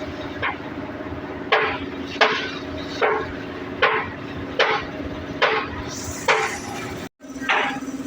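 Hammer blows on a truck's brake bushing: about nine sharp strikes, evenly spaced a little under a second apart, over a steady low hum. The sound cuts out for a split second near the end.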